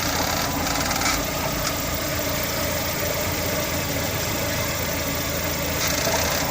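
Lada Vesta engine idling while the robotized gearbox's clutch actuator works, giving short high-pitched squeaks and whirs at the start, about a second in, and near the end. The squeak is the sign of a dry clutch actuator that needs greasing.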